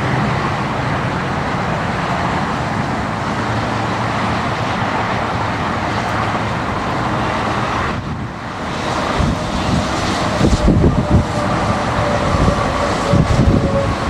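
Highway traffic passing on wet, slushy pavement: a steady hiss of car and truck tyres. In the second half, gusts of wind buffet the microphone.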